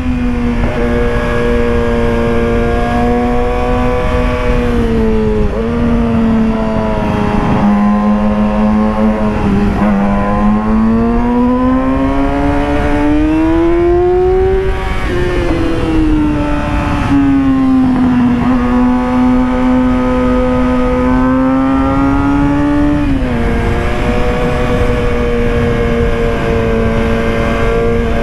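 Yamaha YZF-R6's inline-four engine running hard at high revs while riding. Its pitch climbs and dips with the throttle: a long rise about ten seconds in ends in a sudden drop, and there are several other abrupt drops. Wind rush on the microphone sits underneath.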